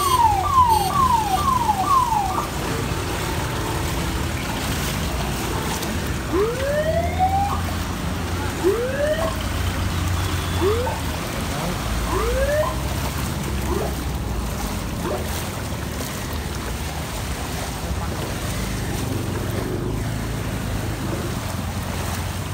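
An electronic alarm sounding in rapid falling sweeps, about three a second, cuts off about two seconds in. Later comes a string of rising whoops every second or two, over a steady low rumble.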